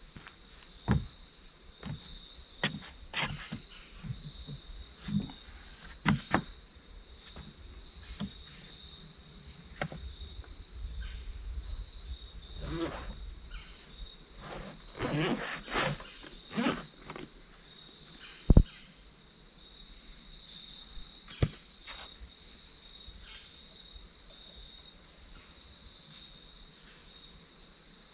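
A steady, high insect chorus of crickets chirring, with scattered knocks and clicks of footsteps and a folding chair on a wooden deck, and one sharp click about two-thirds of the way in.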